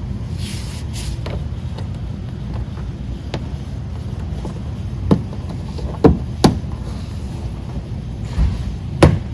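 Sharp clicks and knocks of plastic clips and fasteners being pushed and tightened into a car's rear bumper cover, several in the second half, over a steady low rumble.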